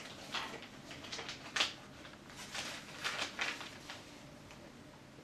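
Blood-pressure cuff being wrapped around an upper arm: a series of short, soft rustles of cuff fabric being handled, over the first four seconds.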